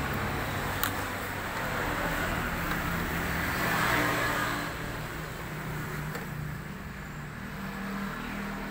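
Motor vehicle engine and traffic noise, swelling to its loudest about four seconds in and then easing off, with a single sharp click about a second in.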